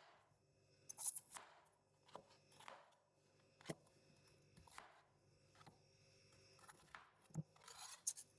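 Faint food-preparation handling sounds: short scraping strokes and light clicks, irregularly spaced about a second apart.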